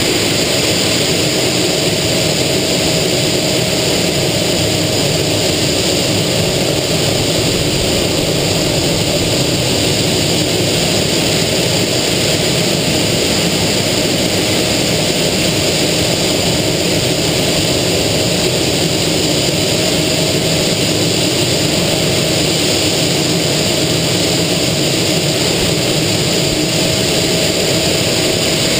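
Aero L-29 Delfín jet trainer's single Motorlet M-701 turbojet and rushing airflow heard inside the cockpit in flight: a steady, even roar with a constant whine.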